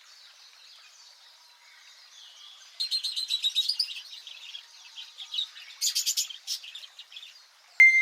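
Small birds chirping and twittering in quick high trills, getting louder about three seconds in. A single bright chime-like ding rings near the end.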